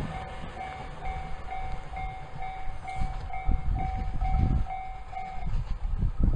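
Electric commuter train running along the line with a low rumble, while a level-crossing warning bell dings evenly about twice a second and stops near the end.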